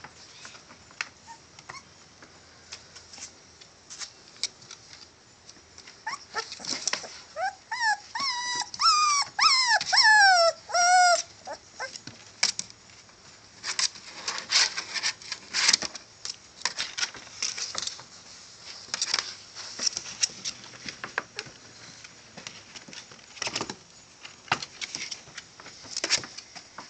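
Young Catahoula bulldog puppies whimpering, with a string of high rising and falling whines from about 7 to 11 seconds in. Short scratching and rustling clicks of the puppies moving on a towel run through the rest.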